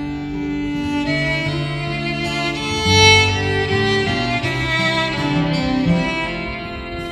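Violin playing a slow melody over acoustic guitar accompaniment, an instrumental break between sung verses of a Swedish visa. The violin swells to its loudest about three seconds in.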